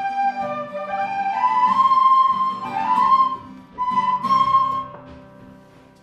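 Instrumental background music: a high melody climbing in steps over a lower accompaniment, dying away near the end.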